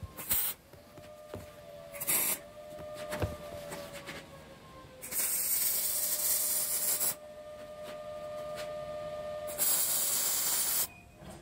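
MIG welding on mild steel: two brief arc strikes early, then two longer runs of crackling, sizzling hiss, one of about two seconds starting around five seconds in and one of just over a second near the end. A faint steady hum runs underneath.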